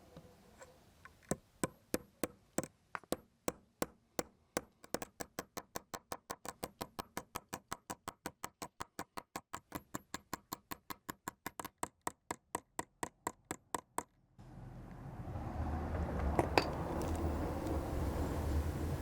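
A long run of sharp taps, irregular at first and then steady at about four a second, stopping about 14 s in. A steady noise follows, with one sharp click partway through.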